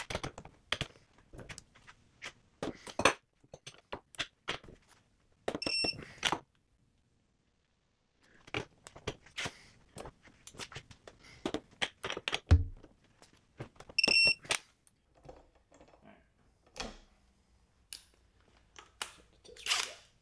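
Bolts being tightened with a long wrench bar on a digital torque adapter: repeated ratcheting clicks and metal knocks, with two short electronic beeps from the adapter, about 6 and 14 seconds in, signalling that the set torque is reached. A single dull thud comes just after the middle.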